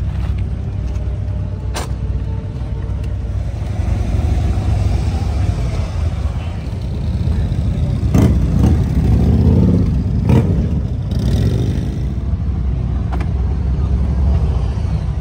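Motorcycle engines running with a deep, steady rumble that grows louder for a few seconds past the middle, as a bike revs or rides close by. A few short sharp clicks come in between.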